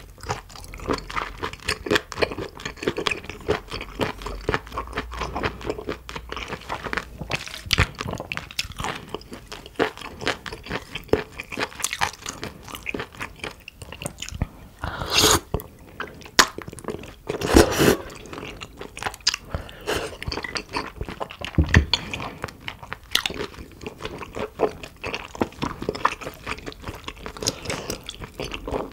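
Close-miked eating: chewing and biting into spicy stir-fried octopus, beef tripe and shrimp, a steady run of short crunchy clicks, with a few louder bites about 15 and 17 seconds in.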